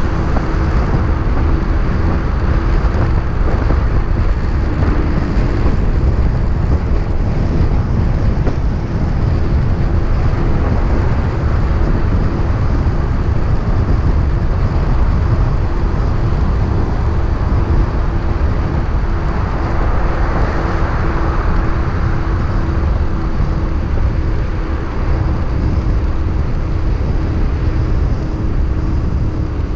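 Motorcycle running at steady cruising speed, a constant engine drone under heavy wind rush on the microphone, with a brief swell of road noise about two-thirds of the way through.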